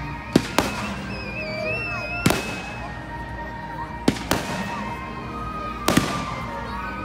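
Aerial fireworks exploding: a series of about seven sharp bangs, some in quick pairs, spaced irregularly across the seconds.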